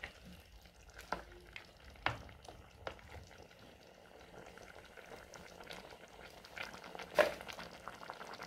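Salt-fish and tomato stew simmering in an aluminium pot while a wooden spoon stirs it. The spoon knocks against the pot several times, the loudest knock about seven seconds in.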